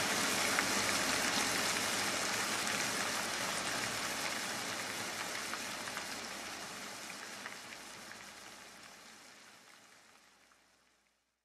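Steady rain falling, with single drops ticking through it. It fades out gradually and stops just before the end.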